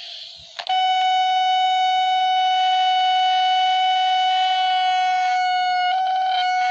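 Steady electronic alert tone of a homemade Emergency Alert System alarm: one buzzy held pitch with many overtones. It starts with a click about half a second in and briefly breaks up about five and a half seconds in.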